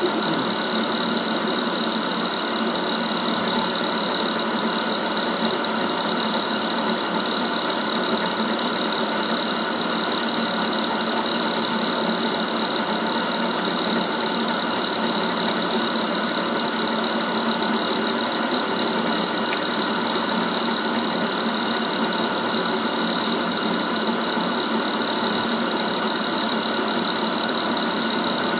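Vertical milling machine running steadily, its cutter taking a power-fed pass along a shaft held in the vise: an even mechanical hum with a steady high whine.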